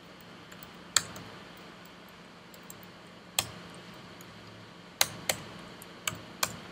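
Computer keyboard keys being pressed as code is typed: about six separate sharp clicks with pauses between them, over a faint steady hum.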